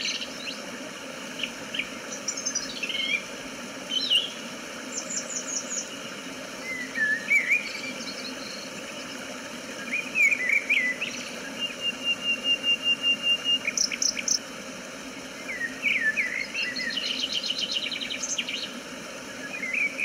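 Several songbirds singing and calling, with short chirps, whistled phrases and quick trills. They sound over a steady rush of falling water.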